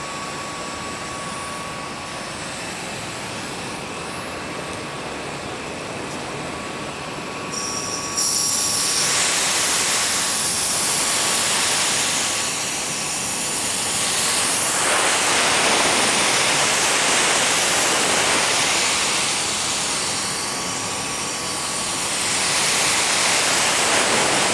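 Air rushing and hissing as the 3S-GTE's intake hose between turbo and air flow meter is pressurized for a leak test. It gets louder about a third of the way in, then swells and eases, with air escaping through small leaks that the owner traces to grooves worn in the hose's flexible section.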